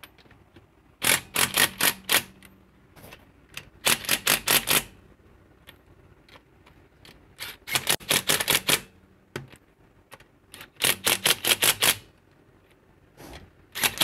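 DeWalt cordless impact wrench running lug nuts down onto a car wheel in short bursts of rapid hammering, four bursts of about a second each with another starting at the end: the nuts are being snugged one after another in a star pattern before final torquing.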